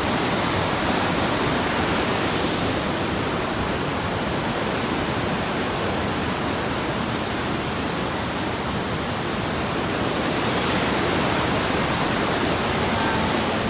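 Rushing water of a fast mountain stream: a steady, even hiss with no breaks.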